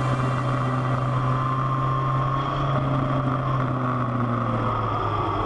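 Motorcycle engine running at a steady, even pitch while the bike cruises.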